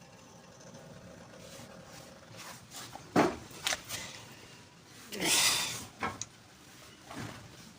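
Metal suspension parts being handled while a stabilizer link is fitted by hand: a sharp knock about three seconds in, a couple of lighter clicks after it, then a short scraping rub about five seconds in.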